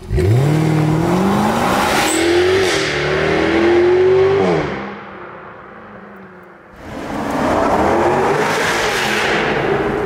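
2020 Jaguar F-Type R's supercharged V8 accelerating hard away through a tunnel, its note climbing steadily in pitch for about four seconds before dying away. About seven seconds in the engine note comes back loud as the car accelerates again through a tunnel.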